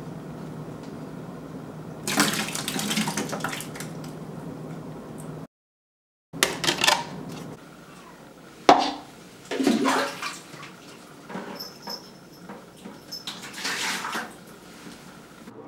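A refrigerator's door dispenser running with a steady hum, with a louder rush of dispensing about two seconds in. After a short break of silence, water splashes into a plastic bucket from a plastic container in several separate pours, with a sharp knock near the middle.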